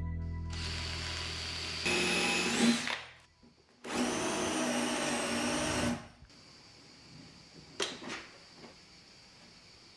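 Cordless drill-driver boring into a softwood batten. A first short run speeds up and stops abruptly, then after a short pause a steadier run lasts about two seconds. Two light clicks follow near eight seconds in.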